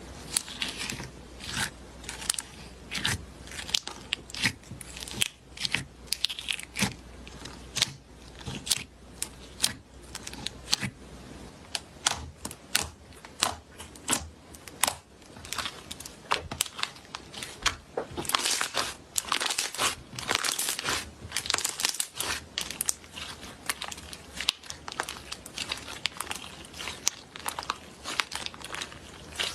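Slime being squeezed and pressed, giving irregular sharp pops and clicks with crinkly, crackling stretches, densest about two-thirds of the way through.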